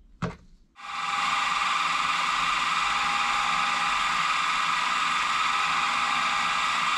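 A bench milling/drilling machine running steadily with an even mechanical whine while its drill bit cuts an angled port through a brass model steam engine cylinder. A short sharp knock comes just before the machine noise starts, and the noise cuts off suddenly near the end.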